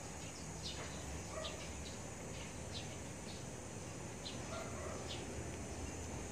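Short, high-pitched animal chirps, about one a second, with a couple of fainter lower calls, over a steady background hiss.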